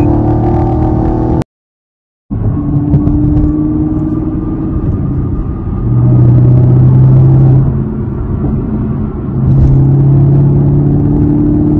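Honda ADV150 scooter's single-cylinder engine running steadily under way, with wind rumble on the helmet or bike microphone; the engine drone swells louder twice. The sound cuts out completely for about a second near the start.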